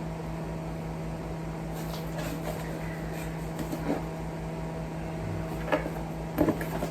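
Steady hum of a running appliance in the room, with a few soft knocks and rustles of the cardboard box and packaging being handled as the contents are taken out, more of them near the end.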